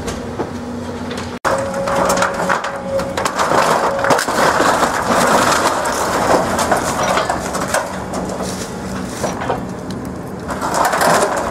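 Hyundai 180LC-7 excavator's demolition grapple crushing and tearing apart a timber house's roof and shingled wall, with wood cracking and splintering in a dense, continuous clatter over the excavator's steady diesel engine. The sound cuts out for an instant about a second and a half in.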